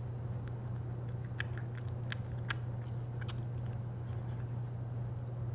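Fillet knife cutting through a deer's hide around the anus: a scatter of small crisp clicks and crackles, over a steady low hum.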